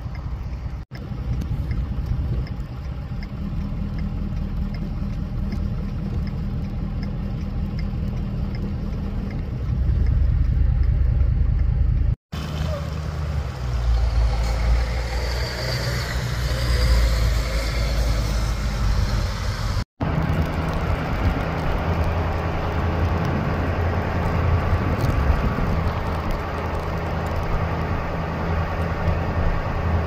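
Motor vehicle engines and road noise on snow-covered roads: a steady low engine drone that changes at two cuts. In the middle stretch snowplow trucks' engines rumble more heavily.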